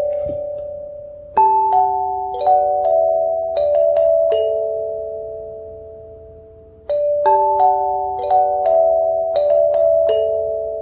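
Background music: a slow, gentle melody of struck, bell-like notes that ring on and fade away, with new phrases starting about a second in and again near seven seconds in.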